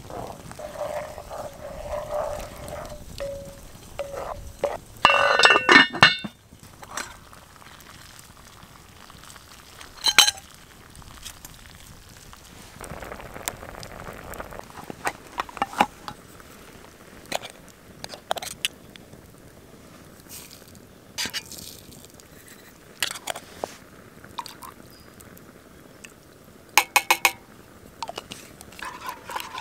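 Cooking over a campfire: a wooden spoon stirring in a cast-iron Dutch oven, with scattered sharp metallic clinks from the pots. The loudest is a jangling metal clatter about five seconds in.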